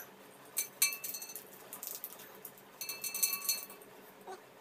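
A small plastic spice sachet crinkling as it is handled, in two short spells of crackling, with a light click or two.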